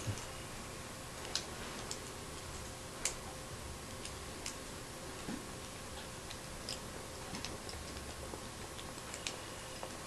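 Light, irregular clicks of a Beyblade's metal and plastic parts being fitted and turned by hand, about a dozen scattered clicks.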